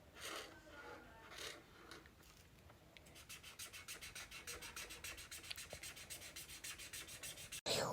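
Markers colouring in on paper: a few soft rubbing strokes, then from about three seconds in a fast, even run of back-and-forth scribbling strokes that stops abruptly near the end.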